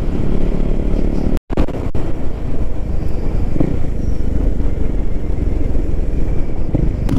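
Motorcycle engine running while riding, with steady low road and engine rumble heard from the rider's seat. The sound cuts out for an instant about one and a half seconds in.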